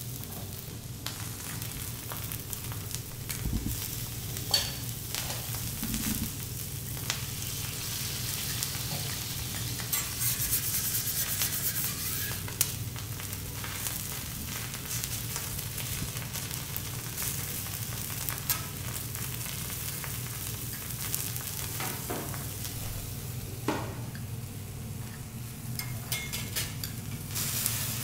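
Vegetable slices sizzling on a hot steel teppanyaki griddle, with a few sharp clinks of the metal spatula and fork against the plate.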